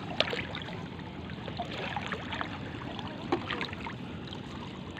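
Water sloshing and splashing as the raft and the people on it move through shallow floodwater, with scattered short splashes; two sharp knocks or splashes stand out, one just after the start and one about three seconds in.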